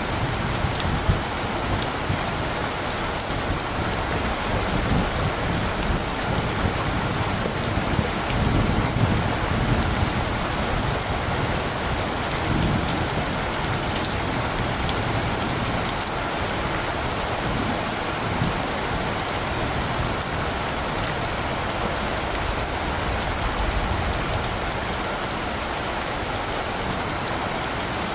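Steady rainfall, with a light low rumble of thunder swelling and fading about eight to ten seconds in.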